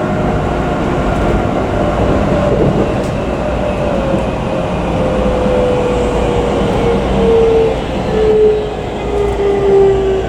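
Keikyu New 1000 series electric train heard from inside the car: the traction motor whine falls slowly and steadily in pitch as the train slows, over a constant rumble of wheels on rail.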